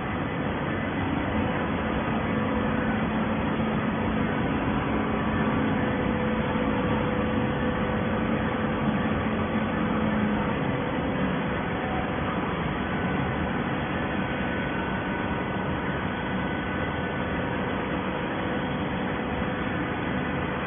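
Horizontal hydraulic baler running: a steady mechanical drone with a low hum that fades out about halfway through.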